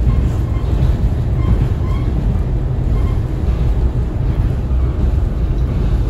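KiHa 40 diesel railcar running at speed, heard from inside the cabin: a steady low rumble, with a few faint, short, high-pitched squeaks.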